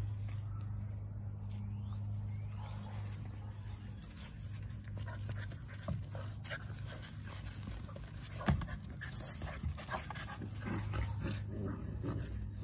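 Golden retriever puppies play-wrestling, with small whines and yips and scuffling in the grass over a steady low hum. A sharp knock comes about eight and a half seconds in.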